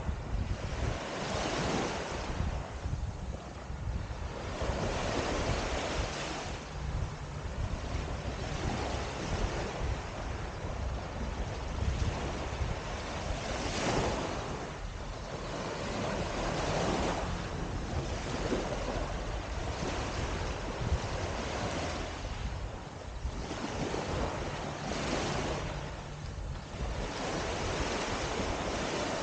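Small waves breaking and washing up on a sandy shore, swelling and fading every few seconds, with wind on the microphone adding a low rumble.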